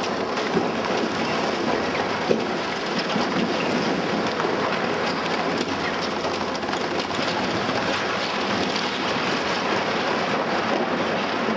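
Timber frame of an old barn being pulled down by an excavator's demolition grapple: a dense, steady crackle of splintering beams and falling wood debris, with a couple of sharper cracks in the first few seconds.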